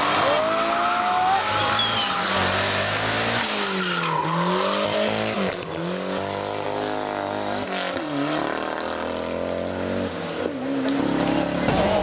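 Ford Sierra rally car's engine revving hard and falling away several times through a tarmac hairpin, with gear changes and some tyre squeal.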